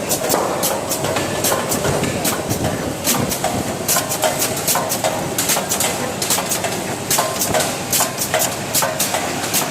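Cup-filler pouch packing machine running, its mechanism clattering with rapid, repeated clicks over a steady mechanical rumble.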